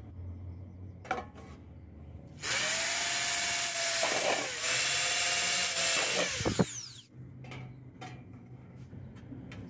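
Electric drill with a small twist bit boring a hole through a thin sheet-metal case: the motor runs at a steady whine for about four and a half seconds, dips once as the bit bites, then winds down.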